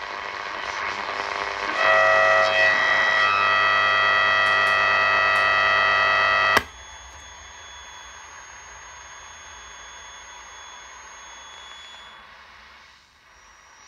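Grundig Ocean Boy 210 radio tuned between stations: loud buzzing static with several steady whistles, cut off about six and a half seconds in by the click of a band push-button switching it to longwave. After that comes a much quieter hiss with a faint, steady high whistle.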